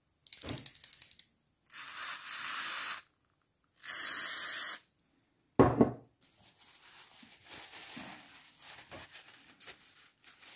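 Aerosol spray can hissing in two steady spurts of about a second each onto a fishing reel's body, after a short rapid crackle. Near the middle comes a loud thump, then soft rustling of a paper tissue as the reel is wiped.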